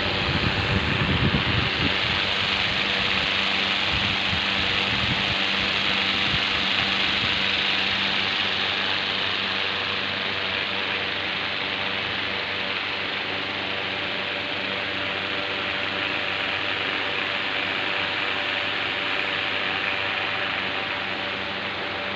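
Evaporative air cooler's fan motor running, a steady whir with a hum. There are low bumps in the first couple of seconds.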